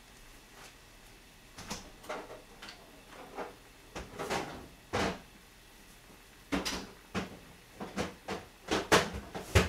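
Thick, spicy sausage stew boiling hard in a pot, its bubbles bursting in irregular pops and plops that come thicker and louder in the second half.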